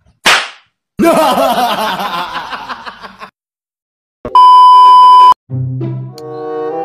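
Editing sound effects for a video transition: a short swish, then about two seconds of a noisy comic sound effect, then a one-second steady high test-tone beep that stops abruptly, followed by the next clip's music starting near the end.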